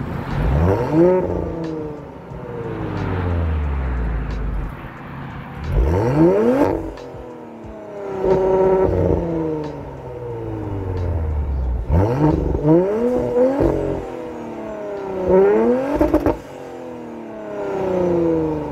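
Audi S4's turbocharged 3.0-litre V6 revved repeatedly while the car stands still. It makes several quick throttle blips, each rising sharply in pitch and then falling slowly back toward idle, with two or three close together near the middle.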